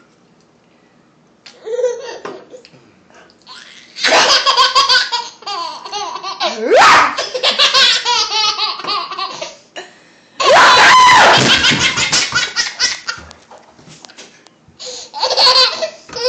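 A baby laughing hard: after a quiet second or so, several long fits of high-pitched belly laughter, one of them with a rising squeal.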